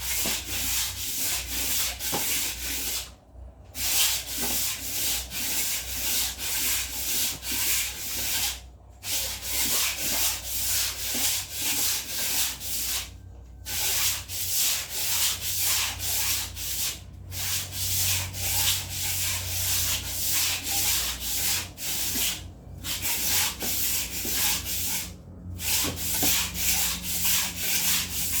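Hand scrubbing a hard surface in quick back-and-forth strokes, about three a second, pausing briefly every few seconds.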